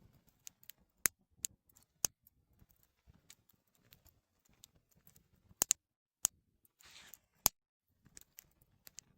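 Campfire crackling: irregular sharp pops and snaps of burning wood, with a short hiss about seven seconds in.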